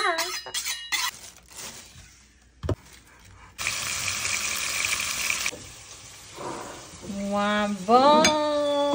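Meat and onions frying in oil in a pot: a steady sizzling hiss lasting about two seconds, starting and stopping abruptly a few seconds in. Near the end a person's voice calls out in a long, drawn-out exclamation.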